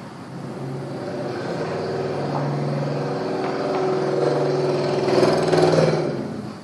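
A motor vehicle's engine passing by, growing steadily louder and then fading quickly near the end.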